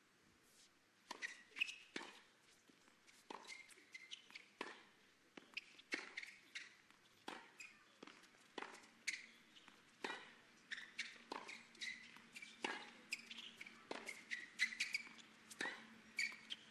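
A tennis rally on a hard court: racket strikes and ball bounces alternating in a quiet run of sharp knocks, about two a second.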